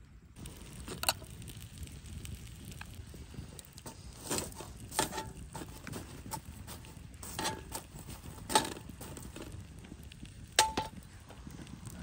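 Open wood campfire crackling, with a low steady rush under it and about half a dozen sharp, loud pops scattered through, some ringing briefly.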